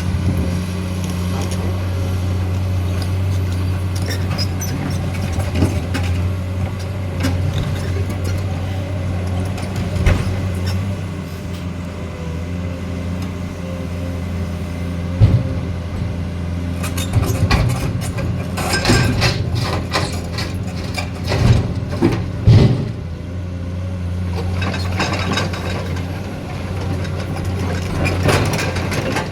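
Excavator's diesel engine running steadily, with a run of sharp metallic clanks and knocks about halfway through.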